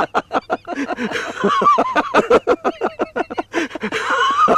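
Men laughing heartily in rapid, repeated bursts, about five or six a second, with the pitch rising and falling.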